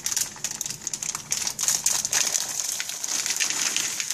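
Crinkling plastic bag of peanut butter chips being poured, the small chips falling into a bowl of thick cookie dough as a dense run of small clicks.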